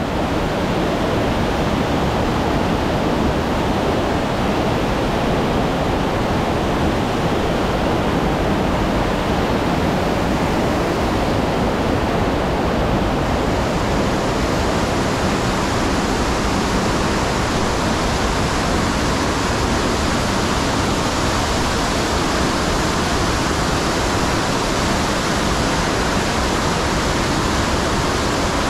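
Rushing water running steadily, a loud unbroken hiss that grows a little brighter about halfway through.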